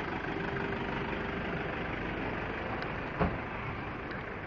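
Traffic noise from cars and trucks standing in a queue, engines running, with a faint steady tone through the first half. A single sharp knock a little over three seconds in.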